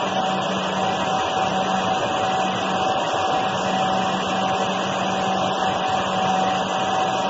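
Heat shrink tunnel machine running, its mesh conveyor belt moving: a steady whir with a constant mid-pitched hum and a lower hum beneath it.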